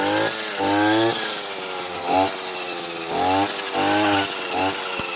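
Two-stroke brush cutter engine revving up and dropping back about six times in a row, as the throttle is worked while cutting weeds and stumps.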